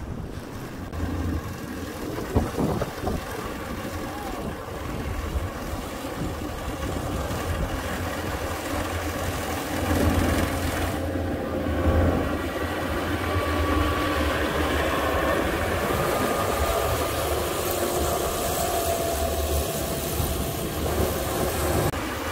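Rice combine harvesters running as they cut standing rice: a steady engine and machinery hum with a strong low drone. It grows louder about halfway through as one harvester passes close.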